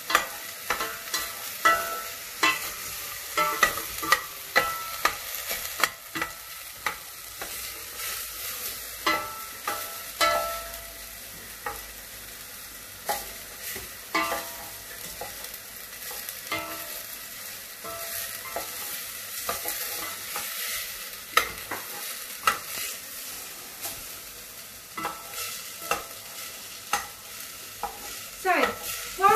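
Onions frying and sizzling in a pan while being stirred, with a utensil clinking and scraping against the pan at irregular intervals.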